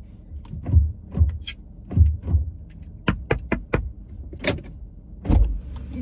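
Irregular clicks, knocks and dull thumps as a handheld canned air horn is handled and fiddled with inside a car, about a dozen sounds in all.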